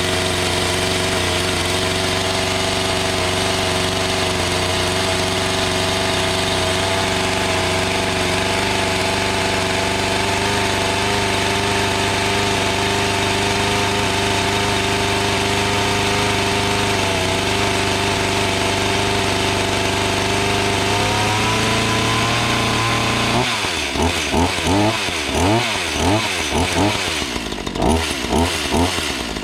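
Black Max 16-inch chainsaw's two-stroke engine on its first start, idling steadily, then revved in a series of quick throttle blips over the last several seconds.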